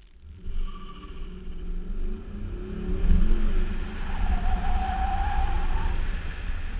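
Car engine revving hard as the car launches from a standing start and accelerates, with heavy wind rumble on the fender-mounted microphone. A high squeal sits over it for about a second and a half in the middle.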